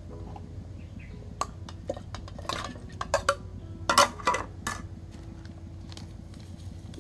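Raw chicken feet tipped from a plate into a stainless steel pot of water, with a run of clinks and knocks of the plate and spoon against the pot, loudest about four seconds in.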